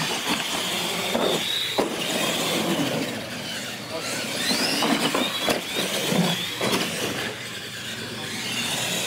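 Radio-controlled monster trucks racing, their electric motors giving a high whine that glides up in pitch as they accelerate, with several knocks from the trucks hitting and landing off ramps.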